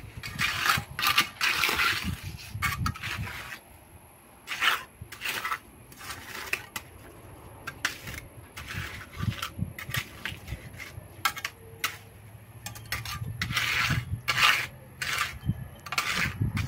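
Metal trowel scraping and clinking in wet concrete and gravel around a steel rebar cage. It comes as a series of short, irregular scrapes and taps with brief pauses between them.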